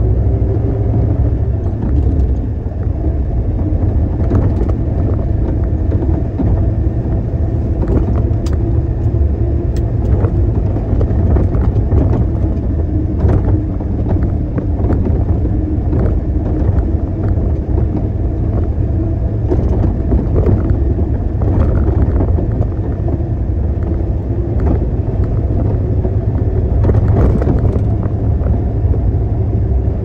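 Diesel engine of a concrete mixer truck running steadily with a loud, even low rumble, with a few brief clicks or rattles over it.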